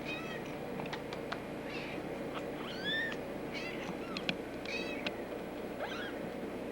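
Young kitten squeaking: a string of short, high-pitched mews, about eight spread over a few seconds.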